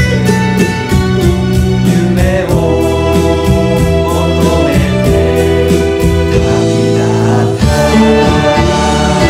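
A song's instrumental accompaniment with voices singing in chorus. A steady beat of about four strokes a second gives way after a couple of seconds to held chords, which change near the end.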